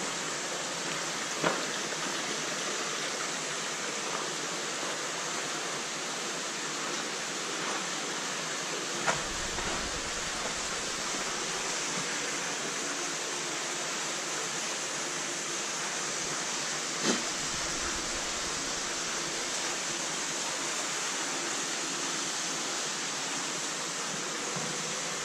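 A steady, even hiss with a few faint clicks, and a low rumble joining for several seconds in the middle.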